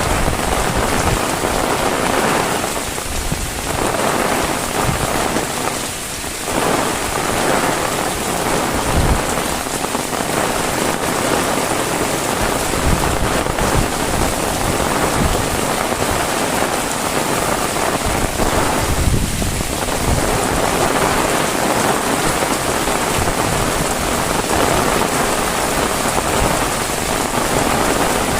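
Heavy rain pouring steadily, a dense hiss of rain hitting surfaces with irregular low thumps of heavy drops, easing slightly for moments about 3, 6 and 19 seconds in.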